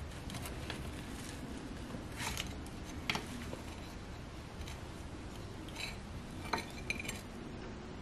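Silicone mini spatula scraping and prying a stuck cake out of a small nonstick baking pan, with a few faint clicks and taps of the pan and spatula.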